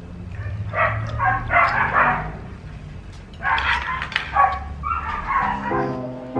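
A dog barking and yapping in two rapid bursts. Music starts near the end.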